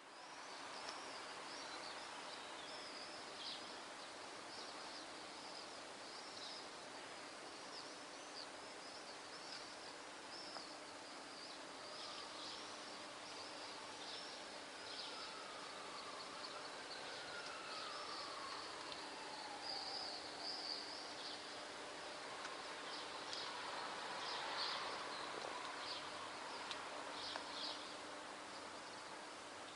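Swallows flying overhead giving rapid, high-pitched twittering calls throughout. A faint falling whine is heard twice in the middle, over a steady low hum.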